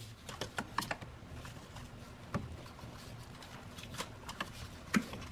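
Scattered light clicks and taps of gloved hands handling plastic wiring connectors and parts in an engine bay, with a somewhat louder click near the end, over a faint low hum.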